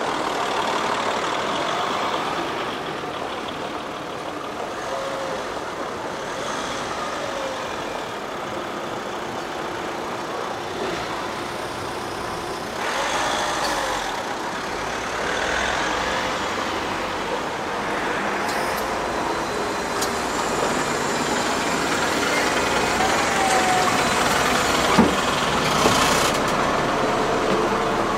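City bus running through traffic: a steady mix of engine and road noise, with a couple of sharp knocks near the end.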